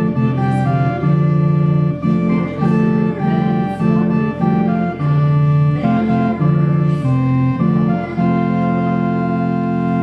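Organ playing a slow piece of chords and melody over a held bass note, settling into a long held chord for the last couple of seconds.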